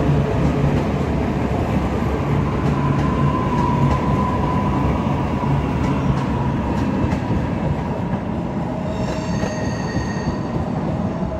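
Queensland Rail electric multiple-unit suburban train running along the platform with a steady rumble and motor hum, its wheels clicking over rail joints. A high-pitched squeal joins about nine seconds in.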